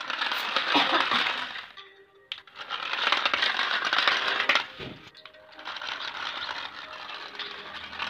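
Remote-control toy jet clattering over brick paving, its plastic body and wheels rattling in three runs of about two seconds each, with music playing throughout.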